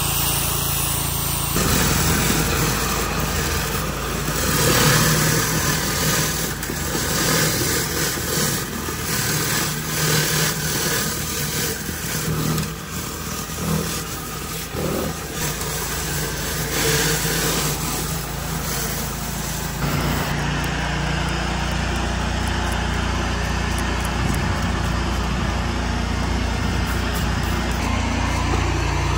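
An engine running steadily under a dense hiss. The sound changes abruptly about two seconds in and again about twenty seconds in.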